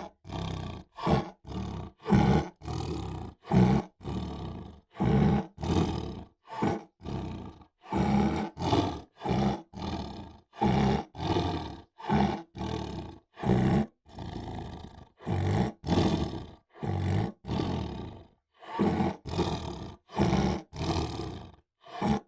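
Tiger roaring and growling, a long string of short roars one after another with brief gaps between them.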